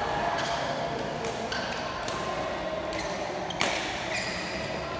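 Badminton rally: rackets smacking a shuttlecock in a string of sharp hits, with short high squeaks from shoes on the court floor.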